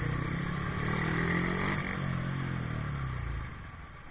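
A motor vehicle's engine running in traffic, a steady hum with a slight shift in pitch, which falls away about three and a half seconds in.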